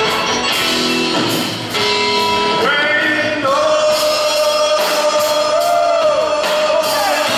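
Live rock band music: electric guitar, drums and upright bass, with a man singing. A long held note sounds through the second half, with pitches bending over it.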